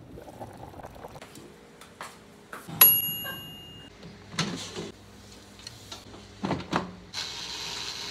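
Cookware and an air fryer being handled: a sharp metallic clang that rings briefly about three seconds in, then a few duller knocks, and a short hiss near the end.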